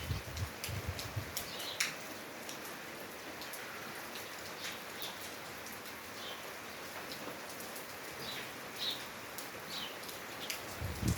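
Steady rain with close raindrops pattering and dripping, and birds giving short chirps every second or two. Low buffets of wind on the microphone come in the first second or so and again near the end.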